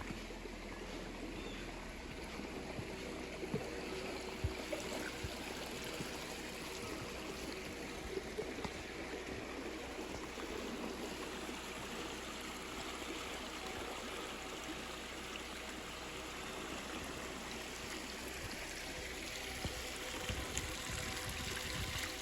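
A steady, even rushing noise with faint sustained music tones underneath and a few light knocks.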